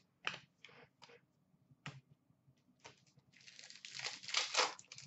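2014-15 Upper Deck Masterpieces hockey cards being handled. A few short rustles and taps, then a longer stretch of crinkling and rustling from about three seconds in, loudest near the end.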